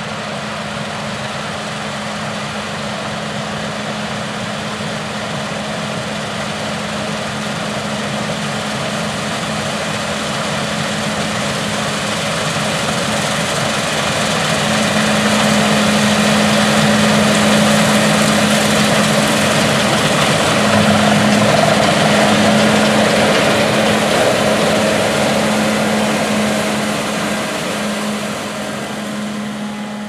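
CLAAS Lexion 8600 TerraTrac combine harvesting soybeans. Its 12.8-litre MAN D26 diesel runs with a steady hum under the rush of the threshing machinery and draper head. The sound grows louder as the combine passes close by about halfway through, then fades as it moves away.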